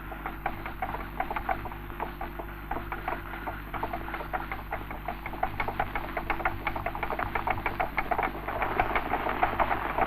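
Hooves of a troop of horses clattering on a paved street: many quick, irregular clicks, over the steady low hum of an old optical soundtrack.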